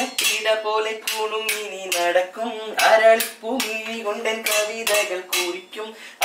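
A steel ladle and spoon drummed on a stainless-steel stockpot as improvised kitchen music: a quick, uneven beat of metal clanks, about three a second, with the metal ringing on between strikes.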